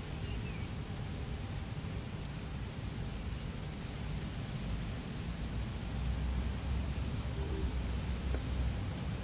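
A steady low rumble that swells slightly about six seconds in, with faint, short, high-pitched bird chirps scattered over it.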